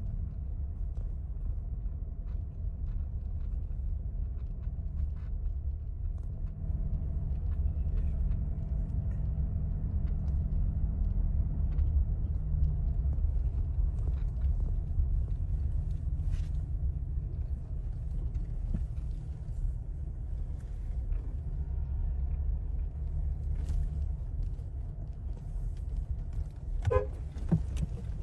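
Steady low rumble of an outdoor industrial work site picked up by a phone, with a brief pitched, horn-like sound near the end.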